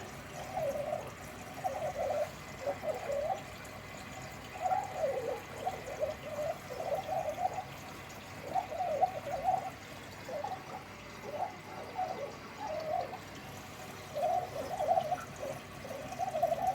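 Beko washing machine filling with water for its rinse: water running in through the detergent drawer, gurgling in uneven bursts over a steady faint rush.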